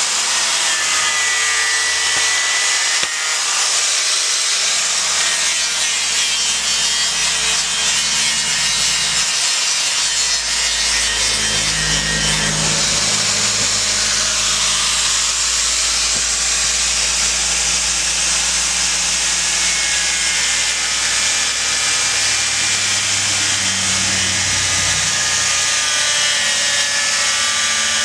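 Angle grinder running steadily with its disc grinding into monkeypod wood, a continuous loud grinding whine.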